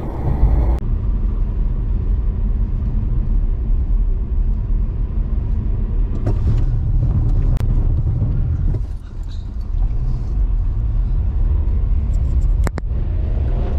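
Steady low rumble of a small car's engine and tyres, heard from inside the cabin, with two sharp clicks: one about halfway through and one near the end.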